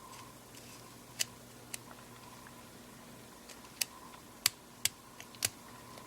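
About half a dozen small, sharp clicks at uneven intervals from the plastic parts of a Panasonic Lumix ZS19 lens unit being turned and handled by hand, over a faint steady hum.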